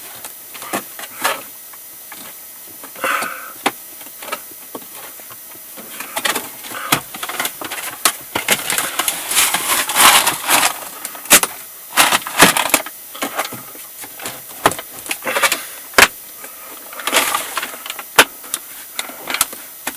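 Plastic dashboard trim panel of a Hyundai i30 being pressed back into place by hand: a string of irregular sharp clicks and knocks as its clips seat, with a few longer stretches of plastic scraping against plastic.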